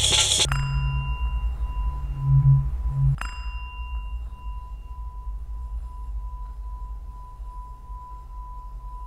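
A singing bowl ringing with a steady, slowly pulsing tone and fainter higher overtones. About three seconds in it is knocked once, briefly brightening the upper overtone. A loud, noisy sound cuts off half a second in.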